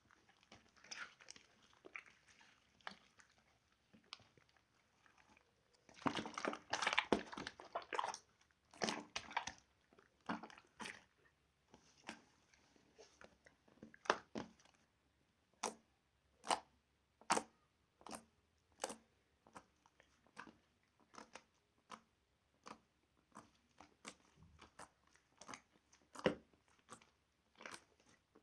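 Slime being squeezed and poked, with wet crackles and pops: a dense run of crackling about six seconds in, then a steady series of single sharp pops, a little more than one a second.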